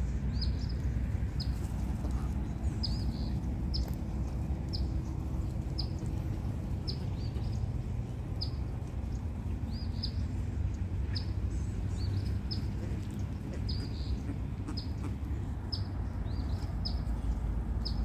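A small bird giving short, high chirps over and over, about one or two a second, over a steady low rumble.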